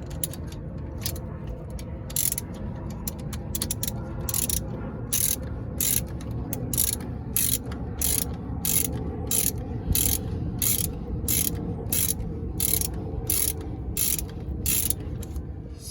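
Ratchet wrench with a 14 mm socket clicking in even strokes, about two clicks a second, as a front brake caliper bolt is worked loose.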